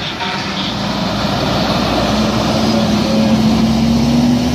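Fire engine driving past close by, a steady heavy rush of engine noise with a low engine note that climbs slowly in the second half as it speeds up.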